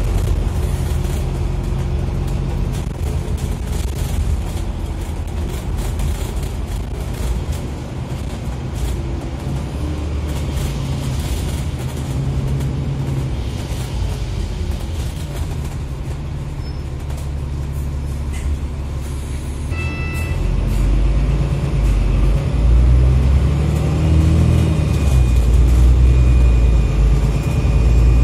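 Alexander Dennis Enviro500 MMC double-decker bus running, with the whining "airplane sound" that sounds strange. A short electronic beep comes about 20 seconds in, after which the engine pulls harder and gets louder, its pitch rising.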